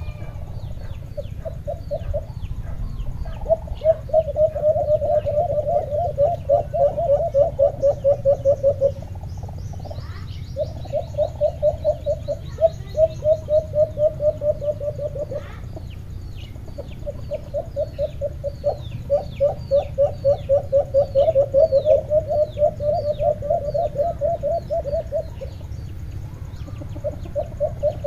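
Caged alimukon doves, kept as decoys, cooing in long trains of rapid soft pulsing notes at about five a second, in four bouts of several seconds with short pauses between. Small birds chirp with short high notes in the background.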